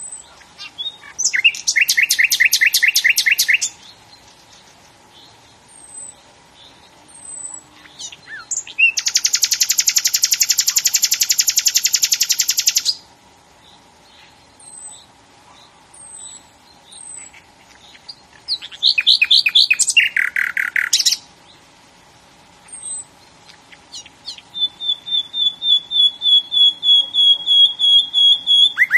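A songbird singing in loud, rapid trilled phrases, one long trill lasting about four seconds, with thin high chips between phrases and a run of repeated notes growing louder near the end.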